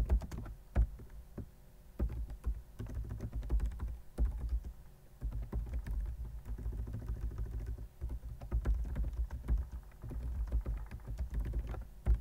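Typing on a computer keyboard: quick runs of keystrokes with short pauses between them, as a commit command and its message are typed out.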